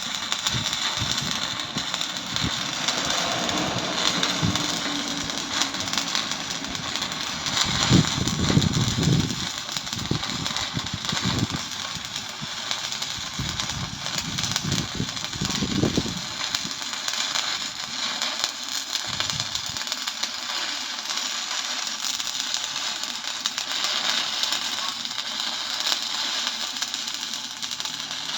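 Arc welding: the arc crackles and sizzles steadily throughout, with a few low thumps along the way, the loudest about eight seconds in.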